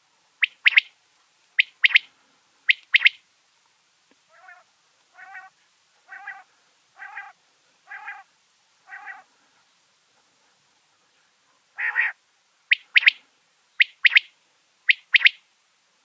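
Common quail singing its sharp 'wet-my-lips' song: quick high notes in pairs about a second apart, three phrases at the start and three again near the end. Between them comes a run of six softer, lower notes about a second apart.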